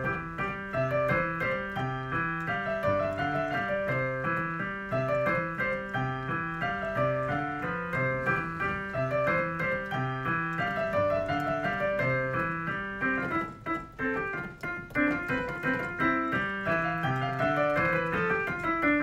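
Background piano music playing a repeating melodic phrase over a steady accompaniment.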